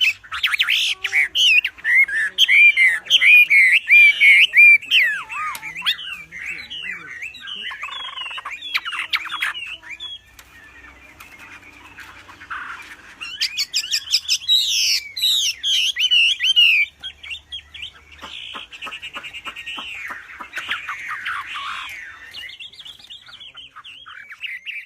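A wambi songbird singing loudly: fast, varied phrases of whistled and harsh notes, with a quieter passage in the middle and a run of rapid clicking notes later on.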